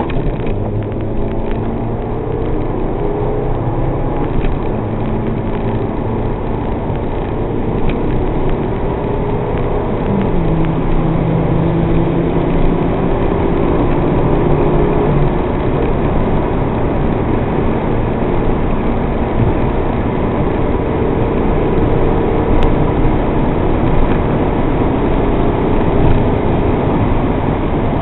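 MG TF's mid-mounted K-series four-cylinder engine heard from inside the cabin while lapping a race track, its note rising under acceleration and dropping at gear changes and lifts. Steady wind and road noise run underneath, and the engine gets louder in the second half.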